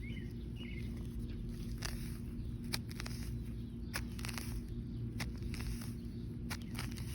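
Homemade steel trowel, cut from a lawn mower blade, digging into yard soil: scattered short scrapes and ticks as the blade bites into the dirt, over a steady low outdoor hum.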